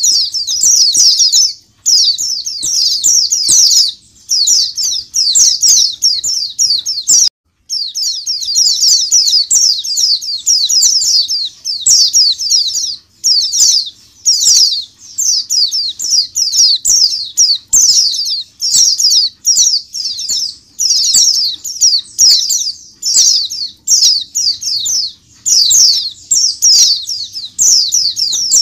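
A crowded flock of white-eyes (pleci) chorusing together in dense, high-pitched twittering. Fast trills about a second long follow one another with hardly a pause, broken once briefly about seven seconds in.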